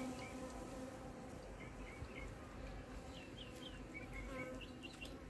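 Many bees buzzing while they forage at flowers, a faint steady drone, with a few short high chirps over it.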